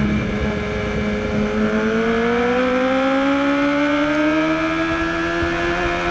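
2013 BMW HP4's inline-four engine accelerating hard in second gear out of a corner, its pitch rising steadily as the revs climb from about 6,000 to 10,000 rpm, heard from a camera mounted on the bike.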